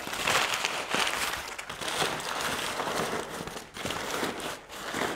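Crumpled brown packing paper crinkling and rustling as it is handled and stuffed into a fabric saddlebag as filler.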